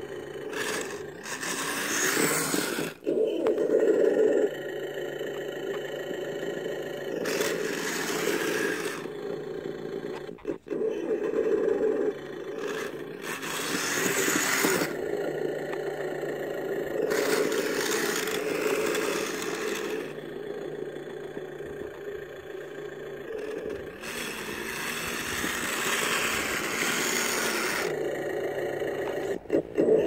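Kyosho Blizzard RC snowcat's electric drive running, with a steady whine from its motors and gearboxes as the tracks churn through snow. Several louder hissing, scraping stretches, each a second or more long, come and go over the steady whine.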